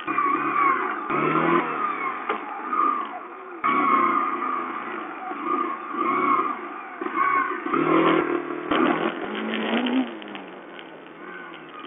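Sherco 125 four-stroke single-cylinder enduro motorcycle engine revving up and down as it is ridden over a rough dirt trail, with a cluster of knocks about eight seconds in. The sound is thin and dull, heard through a watch camera's small microphone.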